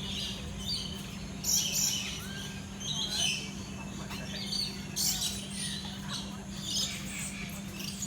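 Many birds chirping and calling, with loud clusters of high chirps every second or two, over a steady low hum.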